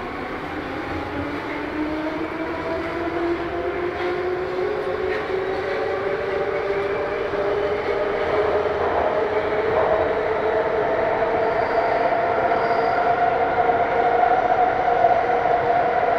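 Vagonmash S81 metro train's DK-117 traction motors whining as the train accelerates, several tones climbing steadily in pitch over the rail noise and growing louder.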